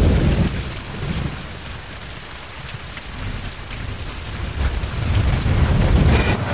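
Heavy downpour with rolling thunder: a steady rush of rain and a deep rumble that is loud at the start, eases, then swells again toward the end.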